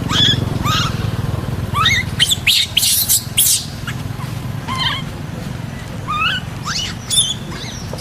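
Baby monkey squeaking in short, high, wavering cries, several in quick succession about two to three and a half seconds in and scattered through the rest. A steady low motor hum runs underneath.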